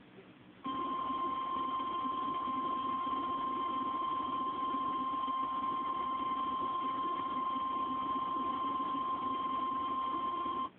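National Weather Service 1050 Hz warning alarm tone: one steady high-pitched tone that starts about a second in and holds for about ten seconds before cutting off, over a faint hiss. It is the attention signal that tells listeners a warning message (here a severe thunderstorm warning) follows.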